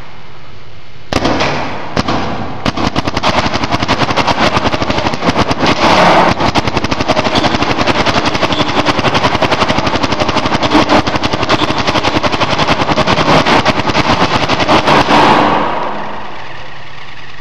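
Paintball marker firing: two single shots about a second in, then a long rapid string of many shots a second that stops about two seconds before the end.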